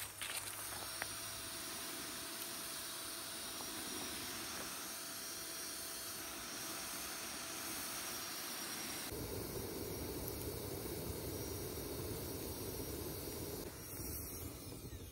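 A small handheld fire-starting device hissing steadily as it is aimed into a fire bowl of logs to get the wood burning. The hiss shifts lower about nine seconds in and stops abruptly at the end.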